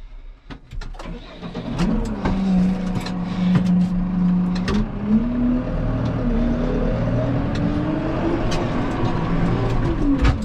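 A vehicle's engine running. It gets louder about two seconds in, then rises slowly in pitch as it gathers speed, with scattered clicks and knocks over it.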